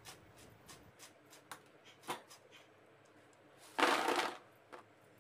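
Crisp double-fried homemade French fries clicking and rattling against a perforated metal skimmer, a sign of how crunchy they have turned out. Just under four seconds in there is a louder clatter lasting about half a second as they are tipped onto a plate.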